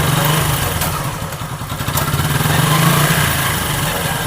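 Motorcycle engine running, its speed swelling and easing once, with a couple of light knocks. No brake squeal is heard: the drum brake shoes and drum have just been cleaned of carbon dust.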